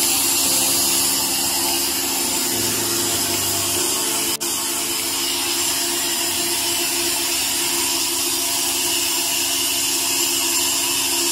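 Atlas Copco GA15 gear-driven rotary screw air compressor running loaded and building pressure: a steady machine hum with a broad hiss over it. It briefly drops out for a moment about four seconds in.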